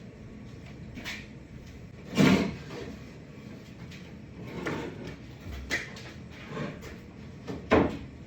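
Wooden boards being set down and shifted on a wooden table frame: scattered knocks, with two louder thumps about two seconds in and near the end.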